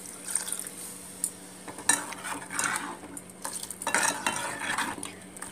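Steel ladle stirring and scraping against the inside of a steel pot of simmering tomato-tamarind stew (tomato pulusu), in several short strokes during the second half.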